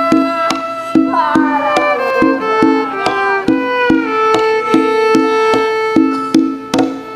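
Instrumental music: a fiddle melody over a steady beat of about two strokes a second, with a quick sliding run of notes about a second in.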